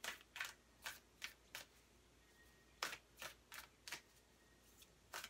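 A deck of Moonology Manifestation oracle cards shuffled by hand, overhand style: a run of about five quick soft card slaps, a short pause, then four more.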